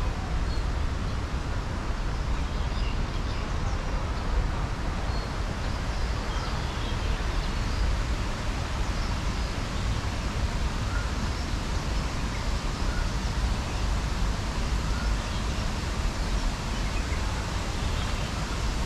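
Steady background ambience with a low rumble and faint scattered chirps.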